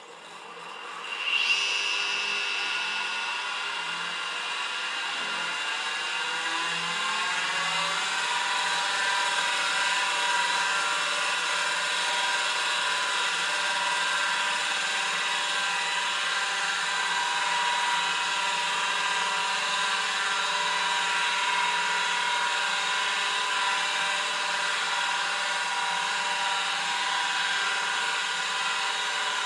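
Spindle motor of a 1981 Quantum 2040 8-inch hard drive, run on 115 V AC, spinning the platters up: it comes on suddenly about a second in, its whine rises in pitch for about six seconds, then settles into a steady whir at full speed. The heads stay still, since the controller board is missing.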